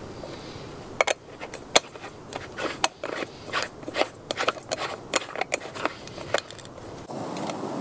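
Aluminium moka pot's upper chamber being screwed onto its base by hand: a run of sharp metal clicks and scrapes from the threads, starting about a second in and stopping near the end. A steady noise takes over for the last second.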